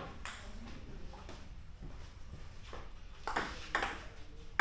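Table tennis ball being hit back and forth in a rally, clicking off paddles and the table. A single click about a quarter second in, then a quicker run of clicks in the last two seconds.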